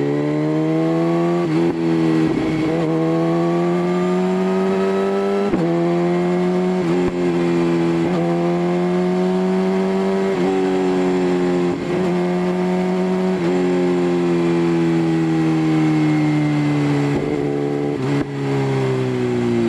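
A motorcycle engine pulling through the gears. Its note climbs a little and then drops suddenly at each gear change, several times, and near the end it falls away steadily as the bike slows.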